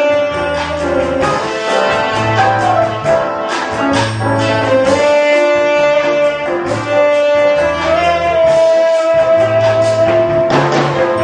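Tenor saxophone playing a jazz melody with long held notes, one sustained through the middle and another from about eight seconds in, over keyboard accompaniment, a recurring low bass line and a steady beat.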